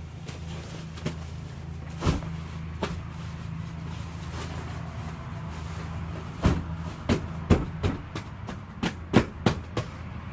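Vehicle engine idling steadily, with a series of sharp thumps and knocks that come thick and fast in the second half.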